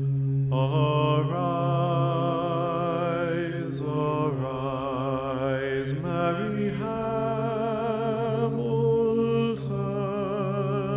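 Chant-like singing: a voice holding long notes with vibrato over a steady low drone, with short breaks about four and six seconds in.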